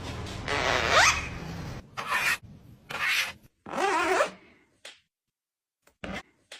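Parrot making a series of short raspy calls about a second apart, one with a rising whistle-like sweep, then falling quiet apart from a brief call near the end.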